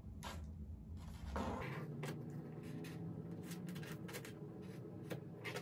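Scissors cutting through a thick woven tapestry blanket: an uneven series of snips as the blades close on the fabric, over a faint low hum.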